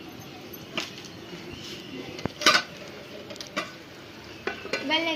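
Steel cooking pot on a wood fire: its lid lifted off and a metal spoon knocking and scraping in the pot, a few sharp clinks, the loudest about two and a half seconds in.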